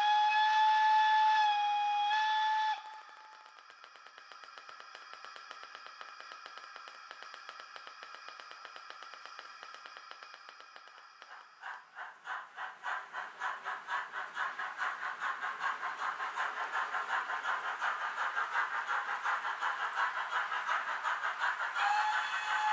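Sound-equipped H0 model steam locomotive giving a whistle blast of about three seconds, followed by faint ticking and then rhythmic steam chuffing that begins about twelve seconds in and grows steadily louder. A second whistle starts near the end.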